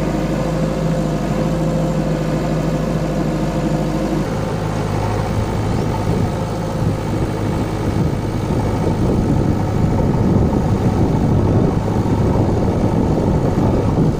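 JCB 3DX backhoe loader's diesel engine running close by, steady at first, then rising to a louder, rougher run about four seconds in.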